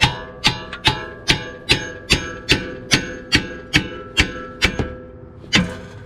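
A hammer strikes the steel suspension at the tie rod end, about a dozen ringing metal blows at roughly two and a half per second, with a short pause before one last blow near the end. The blows are meant to shock the tie rod end's tapered stud loose from the steering knuckle.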